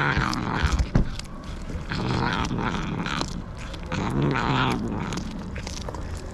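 Stray cats making wild noises while eating chicken: drawn-out, wavering cries, two clearer ones about two and four seconds in, among scattered sharp clicks.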